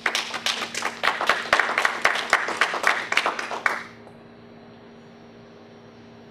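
Audience applauding for about four seconds, then stopping abruptly, leaving a steady electrical hum.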